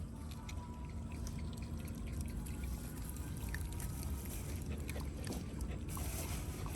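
Water trickling and splashing, with many small scattered clicks over a steady low rumble.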